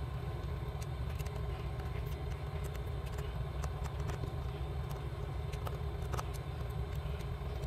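Steady low background hum, with faint light clicks scattered through it from small screws and tools being handled on a smartphone's plastic midframe during disassembly.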